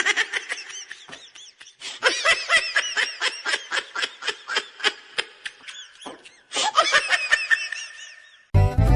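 A person laughing hard, high-pitched, in long runs of quick breathy bursts, about three to four a second, with a short break about two-thirds of the way through.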